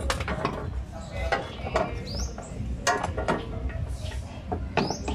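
Ratchet clicking as it turns the threaded rods of a screw-type coil spring compressor, compressing a coil spring, with irregular metallic clicks and knocks. A few short rising chirps sound in the background.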